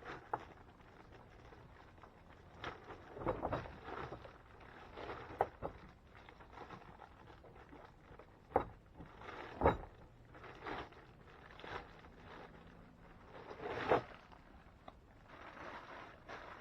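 Handling noises from unpacking a jackhammer's hard case and its parts: irregular knocks, clicks and rustling, with the sharpest knocks around nine to ten seconds in and near fourteen seconds.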